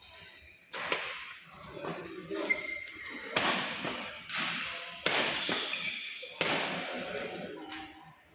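A string of sharp hits, about eight at uneven spacing, each ringing on briefly in a large echoing hall.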